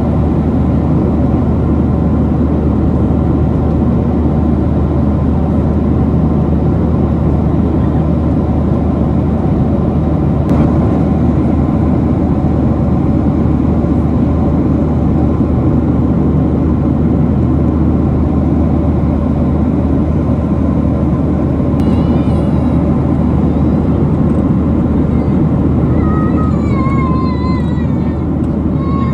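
Steady cabin noise of a Boeing 737-900 in cruise flight: an even rush of engine and airflow noise, strongest in the low range.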